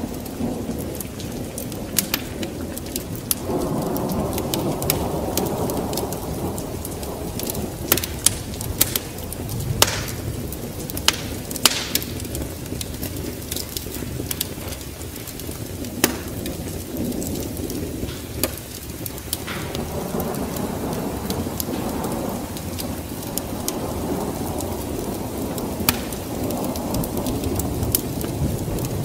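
Wood fire crackling with sharp pops over steady rain, with low rolling thunder swelling twice, about four seconds in and again later on.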